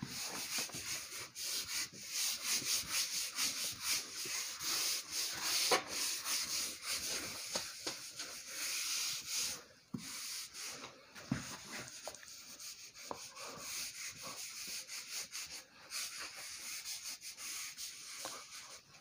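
Handheld whiteboard eraser scrubbed back and forth across a whiteboard, wiping off marker writing in a rapid run of short rubbing strokes, with a brief pause about ten seconds in.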